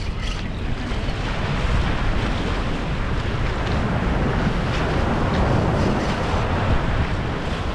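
Steady wind rumbling on the microphone, over the wash of surf.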